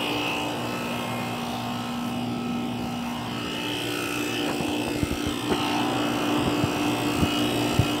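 1994 Rheem Classic central air conditioner condenser units running outdoors: a steady mechanical hum with a held low tone. Low irregular thumps come in during the second half.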